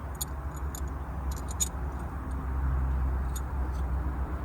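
Scattered light clicks and ticks, a few clustered about a second and a half in, over a steady low hum that swells a little in the middle.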